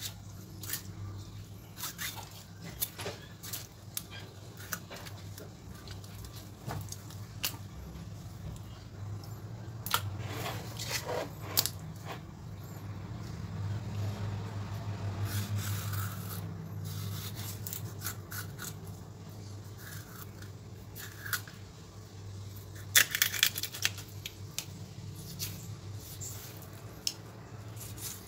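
Knife cutting through small tilapia on a wooden chopping board: scattered clicks and crunches as the blade works along the backbone and through the rib bones, with scrapes on the board and a dense run of louder clicks near the end. A low steady hum runs underneath.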